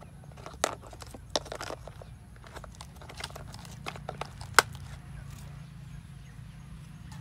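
Sharp plastic clicks and knocks as a hand handles and fits a part onto a plastic toy excavator, about half a dozen scattered clicks with the loudest about four and a half seconds in, over a faint low hum.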